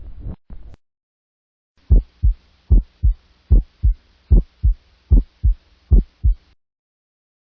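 Heartbeat heard through a stethoscope: six regular lub-dub cycles of first and second heart sounds, about 75 beats a minute, the first sound of each pair the stronger. It starts about two seconds in and stops about a second before the end.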